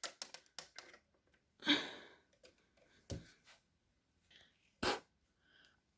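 Duplo bricks being handled: a few small plastic clicks and taps as a tree piece is pressed back onto the baseplate, with a short soft breath about two seconds in and a sharper click near five seconds.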